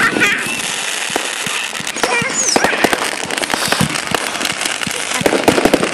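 Consumer fireworks going off: a dense, continuous run of crackling pops and sharp bangs over a steady hiss, from a spark fountain and crackling stars bursting overhead.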